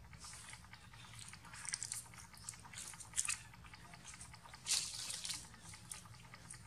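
Dry fallen leaves crunching and rustling in short bursts under a long-tailed macaque moving over leaf litter, with small clicks of the monkey chewing its food. The longest rustle comes about five seconds in.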